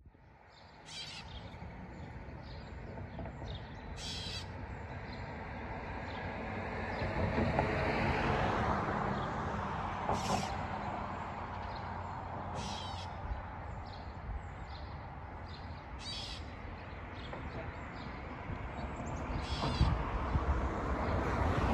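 Gray catbird giving its cat-like meow call, six brief mews spaced a few seconds apart. A broad rushing sound, like passing traffic, swells and fades in the middle.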